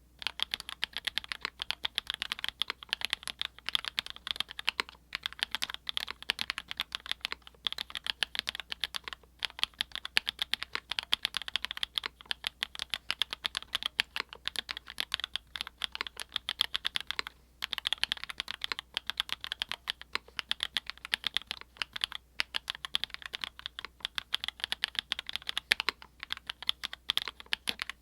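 Rapid typing on a custom mechanical keyboard with Everglide Peacock Blue linear switches, filmed and lubed with a Krytox 205/105 mix, in a Geonworks F1-8X with a polycarbonate plate and PE foam mod. It makes a dense stream of short clacks with a few brief pauses.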